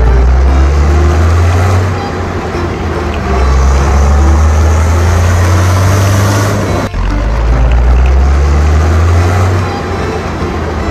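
A motor vehicle's engine running loudly and steadily, with a deep rumble and a brief drop about seven seconds in.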